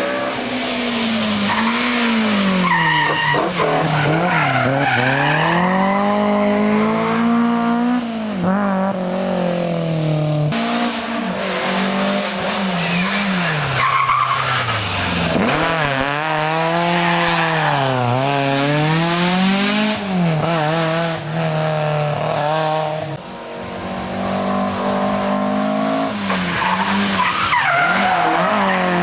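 Classic rally car's engine driven hard on a special stage, the revs climbing and falling again and again through gear changes and corners, with tyre squeal in places. The engine comes off the throttle briefly about two-thirds of the way through.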